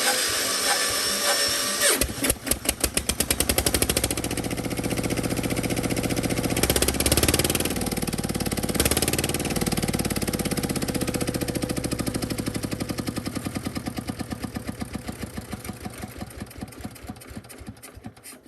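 Small four-wheel tractor's single-cylinder diesel engine running with no exhaust pipe or muffler, exhausting straight out of the open port. A starter whines for about two seconds, then the engine catches and runs with loud, harsh, evenly spaced exhaust beats. The beats slow and fade over the last several seconds.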